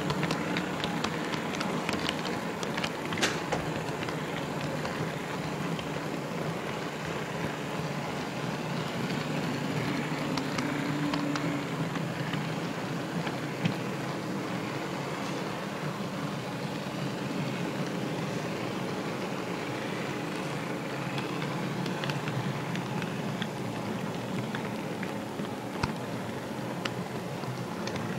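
HO-scale model train rolling along the track, heard from the camera car riding on it: a steady rumble of wheels on rails, with scattered light clicks from rail joints and turnouts.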